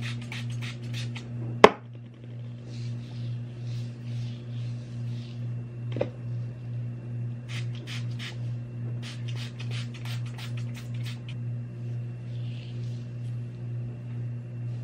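Pump spray bottle spritzed onto hair in quick runs of short sprays, over a steady low hum with a regular throb. A sharp knock about two seconds in is the loudest sound, with a smaller one near the middle.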